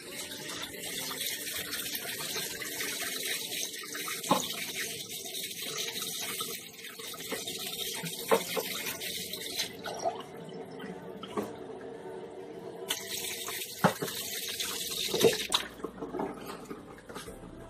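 Water running from a kitchen tap into the sink. It shuts off about ten seconds in and runs again briefly a few seconds later, with a few sharp knocks in between.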